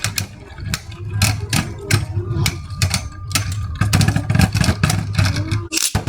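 Spinning Beyblades clashing in a plastic stadium: irregular sharp clacks, several a second, over a low steady hum.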